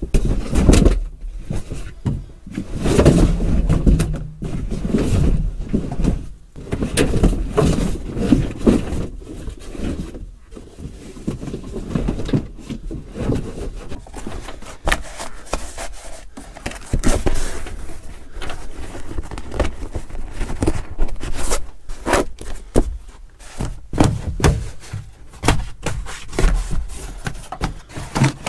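A molded truck floor carpet being handled and laid over a bare steel cab floor: irregular rustling, rubbing and scraping, with knocks and thumps as it drops onto the metal and catches on the trim. The handling is loudest in the first few seconds.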